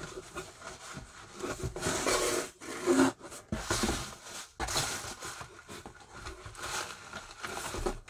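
Hands handling a cardboard shipping box and the paper inside it: an irregular string of rustles and scrapes, loudest about three seconds in.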